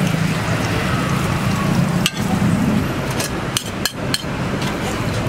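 Metal spatula tapping and scraping on a flat steel roti griddle as the roti is folded. There are a handful of sharp taps, one about two seconds in and a quick cluster about a second later, over a steady low hum.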